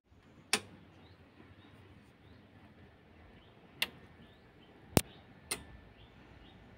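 A cable plug being pushed into an Ashley Premium 4 mixer's socket and the cables handled: four short sharp clicks spread over several seconds, the loudest about five seconds in, over a faint hiss.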